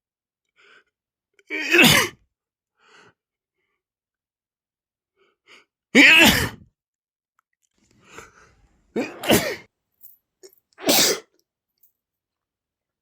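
A man sneezing four times, each a loud, sudden sneeze with quick faint breaths in between. The sneezing is set off by dust from old clothes.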